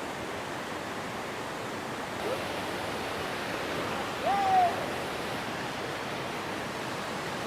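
Steady rush of the Kuang Si waterfall's cascading water. About four seconds in, a short call rises and falls over it.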